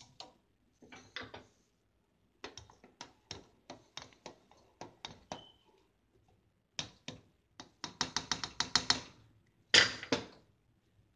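A stirring utensil clinking and tapping against the side of an aluminium saucepan of hot chocolate: scattered taps, then a quick run of about eight taps a second, and a louder clatter near the end.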